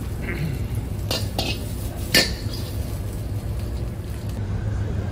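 Metal ladle scraping and knocking against a steel wok as fried noodles are tipped out onto a plate. There are three sharp clinks, the loudest about two seconds in, over a steady low rumble.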